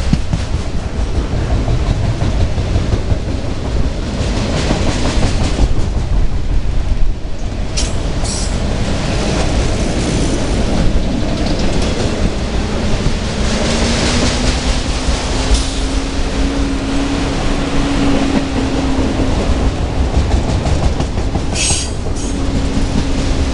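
Freight train of autorack cars rolling past close by: steady rumble and clatter of steel wheels on the rails. A low steady tone sets in about halfway, and brief sharp high-pitched sounds come about a third of the way in and again near the end.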